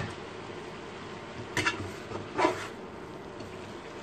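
Cabbage sizzling steadily in a hot pan on a countertop electric burner. About one and a half and two and a half seconds in come two short scraping clinks of a utensil against the pan as the cabbage is flipped.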